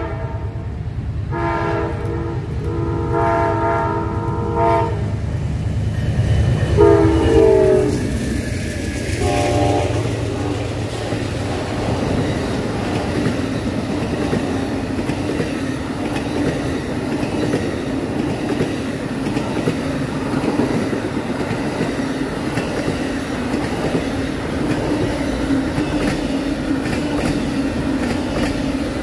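Locomotive air horn sounding a chord in several blasts, the loudest one near seven seconds with its pitch falling as the locomotive passes. The train then rolls by with steady wheel rumble and clickety-clack on the rails.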